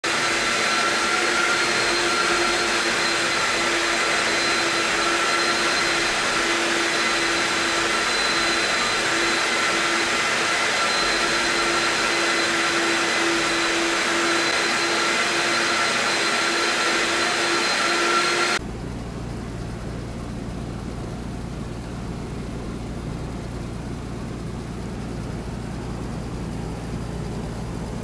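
LG ceiling cassette air conditioner indoor unit running, a loud steady rush of fan airflow with a faint whine. About two-thirds of the way through it switches suddenly to a lower, quieter steady hum from the LG outdoor unit.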